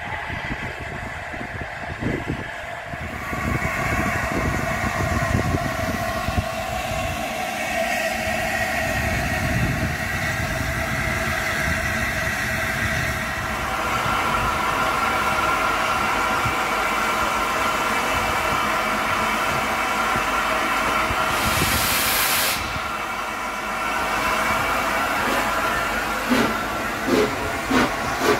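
LNER A4 Pacific steam locomotive 60007 Sir Nigel Gresley hissing steam, with a short loud blast of steam about three quarters of the way through. Near the end, regular exhaust chuffs begin, about two a second, as it starts to move off.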